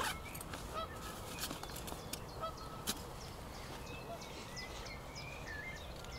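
Geese honking, a few short honks in the first second, with higher chirping bird calls in the second half and a sharp click about three seconds in, over low wind rumble.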